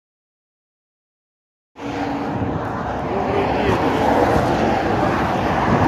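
Dead silence for almost two seconds, cutting in abruptly to the steady road and engine noise of a moving car.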